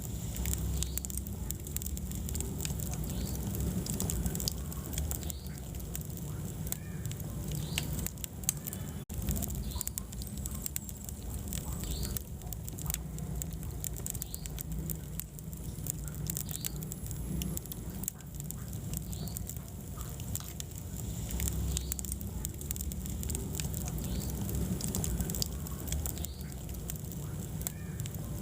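Wood fire burning in a fireplace, crackling with scattered sharp pops and snaps over a steady low rumble of the flames.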